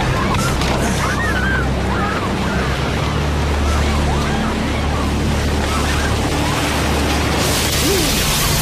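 Disaster-film soundtrack: a steady low rumbling drone under scattered shouts and cries, with a loud rushing surge of noise starting near the end.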